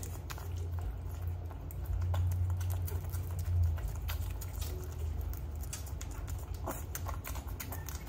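Three-week-old American bully puppy licking and smacking at food on a man's fingertips: irregular small wet clicks, over a low steady hum.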